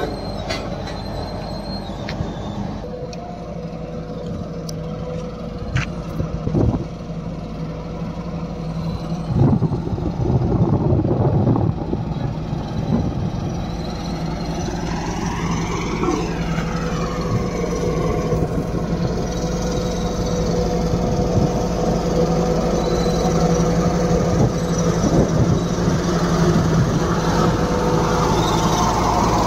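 Diesel engine of an EC 5250 single-drum road roller running steadily with a deep rumble as the machine rolls over a freshly graded dirt road. It gets louder after about nine seconds.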